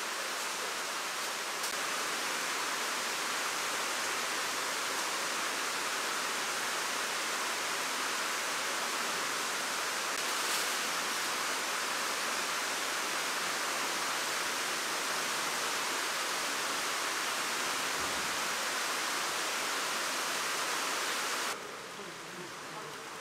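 Steady rushing hiss of water in a salmon-farm tank. It drops suddenly to a lower level near the end.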